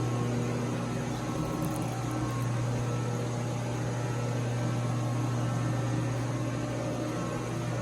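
Steady low electrical-mechanical hum with an even fan-like hiss, unchanging throughout.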